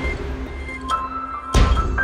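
Intro theme music with held tones and a sudden deep bass hit about one and a half seconds in.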